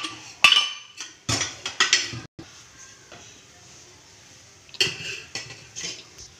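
Steel cookware clinking and clattering: sharp metallic knocks with a short ring, in bunches near the start, about a second and a half in, and again around five seconds in.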